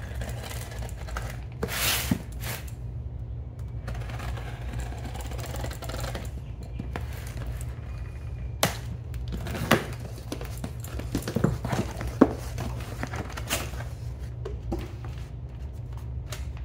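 Utility knife slitting the packing tape on cardboard boxes, then cardboard flaps and paper being handled. The sound is a scraping swish followed by scattered sharp clicks, knocks and rustles, over a steady low hum.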